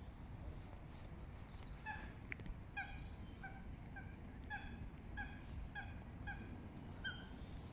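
Goose honking: a string of about ten short, faint honks, roughly two a second, beginning about two seconds in.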